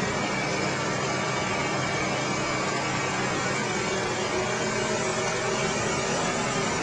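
Engines of heavy work equipment, the crane trucks, running steadily: a constant, even noise with no separate strokes or changes.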